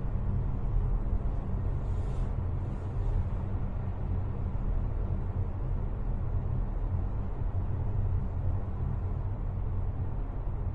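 Steady low hum and rumble with a faint hiss over it, and two faint, brief hissy sounds about two and three seconds in.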